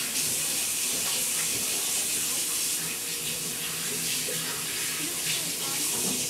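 Kitchen sink faucet running in a steady stream into the sink, shut off right at the end.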